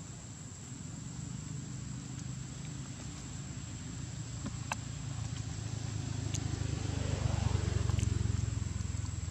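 A steady high insect drone over a low rumble that swells to its loudest near the end and then eases off, with a few sharp clicks.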